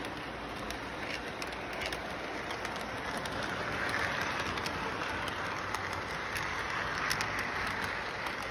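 Train rolling along its track: a steady rushing noise that swells in the middle, with scattered sharp clicks.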